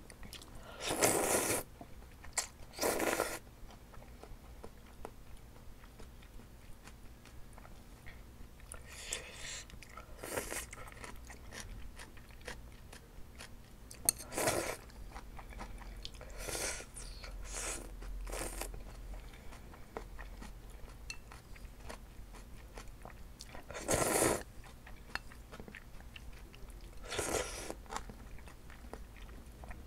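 Close-up eating sounds of spicy glass noodles: chewing, with a loud slurp every few seconds as noodles are drawn in. A faint steady air-conditioner hum runs underneath.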